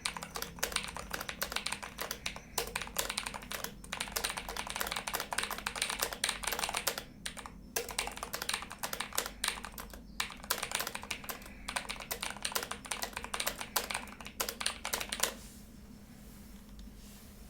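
Fast typing on a HyperX Alloy Elite 2 mechanical keyboard with HyperX Aqua tactile switches: a rapid, continuous run of key clicks with a few brief pauses. The typing stops about two seconds before the end.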